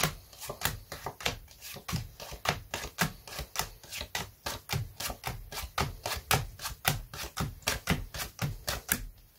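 Playing cards being dealt face up one at a time onto a cloth close-up mat: a steady run of quick card snaps, about four a second.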